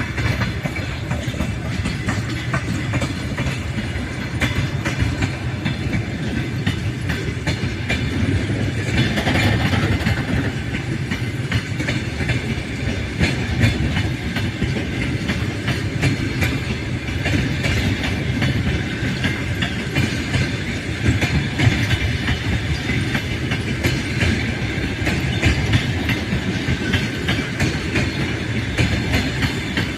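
Passenger train running at speed, its wheels clattering steadily over the rails.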